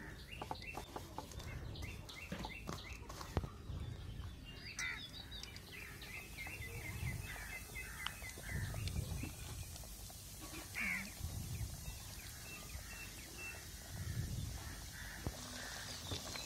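Faint sizzling of an oats-coated chicken leg deep-frying in hot groundnut oil, a steady hiss that builds about five seconds in. Small birds chirp repeatedly in the background through the first half.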